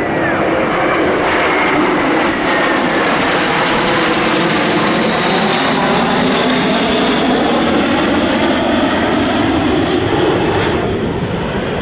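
Jet engine noise from a formation of seven Aero L-39 Albatros jets flying past, their Ivchenko AI-25TL turbofans loud and steady, with a whine that slowly falls in pitch as they go by.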